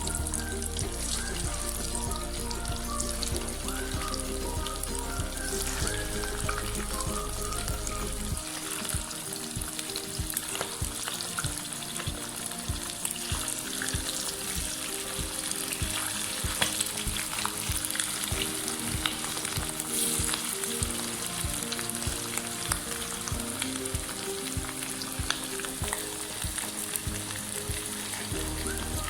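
Marinated chicken pieces deep-frying in hot oil: a steady sizzle with frequent small crackles. Background music plays underneath.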